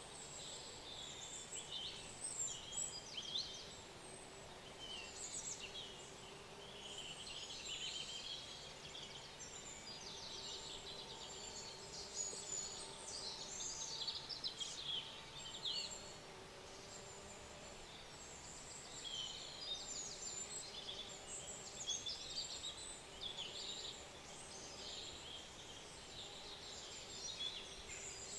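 Many small birds chirping and trilling together in a busy, overlapping chorus of short high calls.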